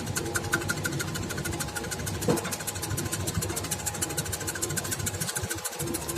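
Onion and cassava slicing machine running, with a fast, even clatter over a motor hum and a single louder knock about two seconds in.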